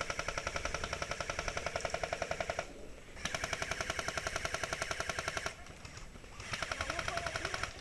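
An airsoft electric rifle firing on full auto in three long bursts of rapid, evenly spaced shots, with the last burst the shortest.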